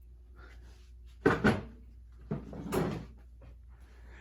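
Antica ceiling fan running on low speed with a steady motor hum, which the owner hears as a bad sign. Two loud knocks come about a second in, and a longer clatter follows near the three-second mark.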